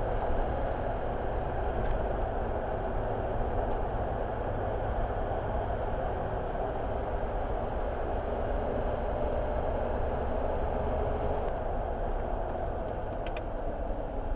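A car driving, its road and engine noise a steady rumble, with a couple of faint ticks near the end.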